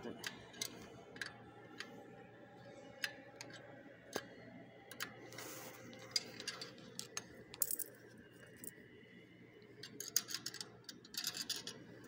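Irregular small metallic clicks and clinks of a nut and screwdriver on a tamper switch's threaded mounting rod as the hardware is loosened, with a quick cluster of clinks about ten seconds in, over a low steady hum.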